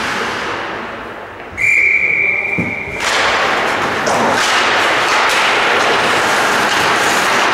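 Hockey referee's whistle blown once, a steady shrill tone lasting about a second and a half, signalling a stop in play. Then a rink's clattering noise with scattered knocks.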